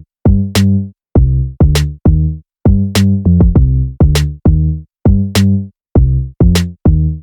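Background music: an electronic beat of short, punchy pitched bass-and-drum hits with hi-hat ticks, about two to three a second, with gaps of silence between them.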